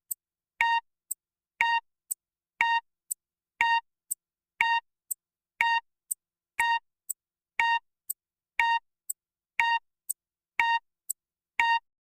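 Countdown timer sound effect: a short electronic beep once a second, each followed about half a second later by a fainter, high tick.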